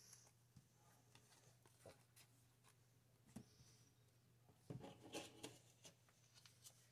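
Near silence: faint, scattered rustles and light taps of trading cards being handled, slid into a plastic card sleeve and set down on a playmat, a little busier about five seconds in, over a faint steady low hum.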